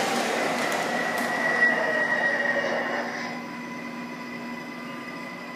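O-gauge MTH R142A model subway train with its onboard subway sound effects running: a steady high squeal over a motor hum. It fades down about three seconds in as the train slows at the station stop.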